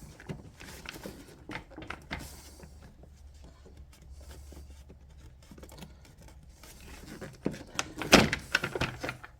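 Scattered clicks, rustles and small knocks of hands and tools working on car parts, with one loud clatter about eight seconds in.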